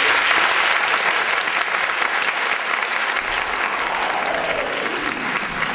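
Audience applauding, the clapping starting all at once and carrying on steadily.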